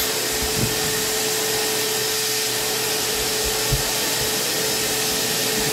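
Stainless-steel wet/dry shop vacuum running steadily: a rush of air with a steady hum, and two soft low thumps.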